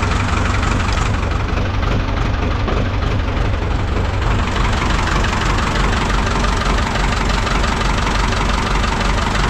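Ford 5000 tractor engine idling steadily.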